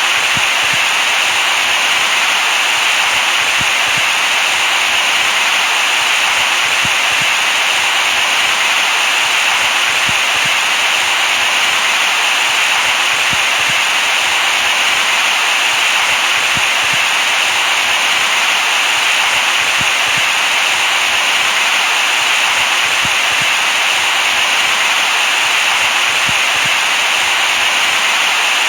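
Steady white noise: a constant, even hiss, brightest in the upper-middle range, played as a baby sleep sound.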